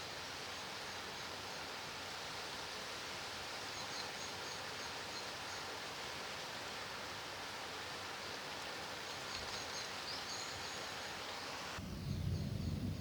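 Steady rain hiss, with faint high chirps twice. Near the end it cuts abruptly to a louder, deeper rumble.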